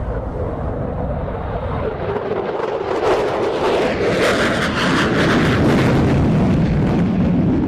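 F-14B Tomcat's twin General Electric F110 turbofans in full afterburner on a fast low pass and pull to vertical. The jet noise builds and turns into a loud crackling about three seconds in, its pitch dropping as the aircraft passes and climbs away.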